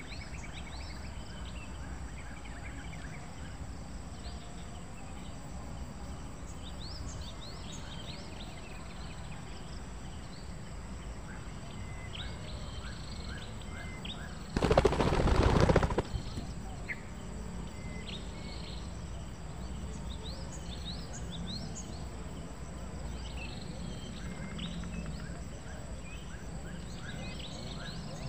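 Small birds chirping in short, falling notes over a low steady background rumble. About halfway through, a loud rough rustling burst lasts about a second and a half.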